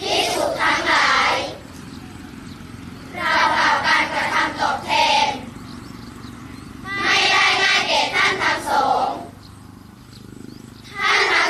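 A large group of children chanting a Buddhist sutta in Thai together, in phrases of about two seconds with short pauses between them: three phrases, and a fourth starting near the end.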